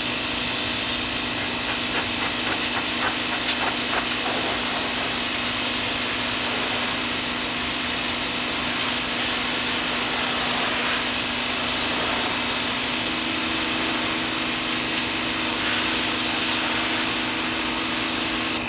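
Greenworks 2000 PSI electric pressure washer running: its pump hums steadily under the loud hiss of the water jet spraying wood. A second, higher hum joins about two-thirds of the way through, and the sound cuts off suddenly at the end.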